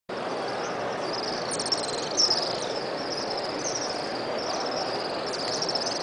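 A flock of swifts (Ababil) circling overhead, giving repeated high, buzzy, falling screams about once or twice a second; the loudest comes about two seconds in. Under it is the steady murmur of a large crowd.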